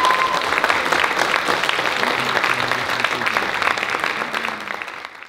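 Audience applauding, fading out over the last second.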